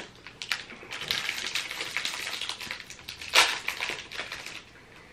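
Plastic wrapper of a small packaged marzipan stollen being pulled and torn open by hand: a run of crinkling crackles with one sharp, louder rip about three and a half seconds in.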